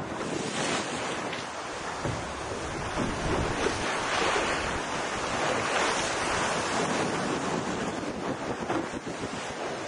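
Wind buffeting the microphone and sea water rushing past the hull of a sailboat under way, a steady noisy rush that swells louder in the middle.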